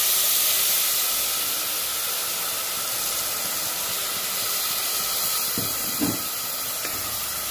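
Water poured into hot oil with fried moong dal and tomatoes in a pressure cooker pot, hissing steadily as it hits the hot oil and turns to steam; the hiss eases a little after the first second.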